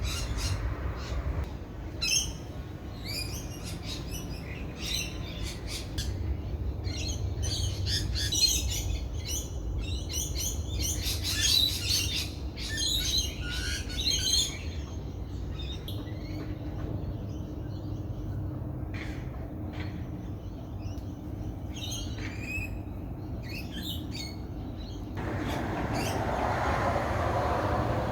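Several wild birds chirping and calling in quick short notes, busiest in the middle, over a steady low background rumble. A broad rushing noise swells in near the end.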